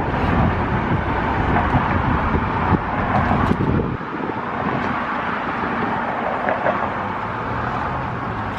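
Steady background noise with a low rumble that drops away about four seconds in, leaving a lighter hiss.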